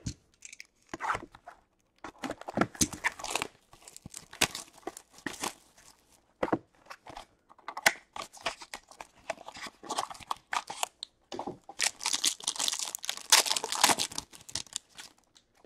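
Handling of a hockey card hobby box and pack: the cardboard box is opened with irregular rustles and scrapes, then the pack's shiny wrapper is torn open and crinkled, densest in the last few seconds.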